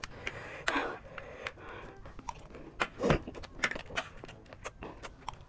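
A person chewing a mouthful of chatpatey, spiced puffed rice, with irregular crisp crunches; one crunch about halfway is louder than the rest.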